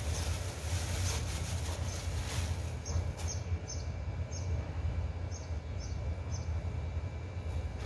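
Steady low hum of outdoor background noise, with some rustling in the first few seconds and short, high bird chirps dotted through the second half.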